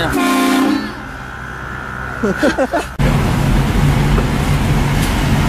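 A short pitched horn blast that stops under a second in, then a quieter moment with brief sliding cries, then from about three seconds in a loud steady vehicle rumble.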